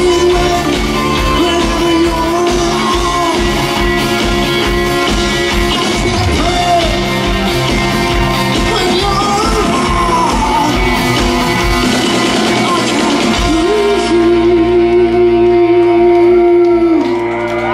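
Live rock band with lead vocals, electric guitars, bass and drums. About thirteen seconds in, the drum beat drops out and the band holds one long note over a sustained chord, which stops near the end.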